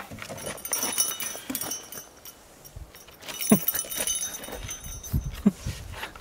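Handling noise from a large moose antler being picked up off gravel: scattered scrapes, knocks and clatter, with rustling throughout.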